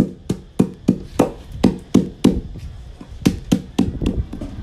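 A metal mallet pounding lemongrass stalks on a wooden cutting board, about three dull strikes a second, with a brief pause a little past halfway.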